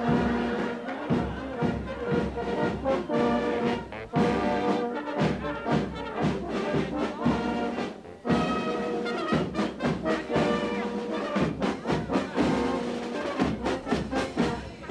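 Brass band playing a tune, with a steady beat of drum strokes under it.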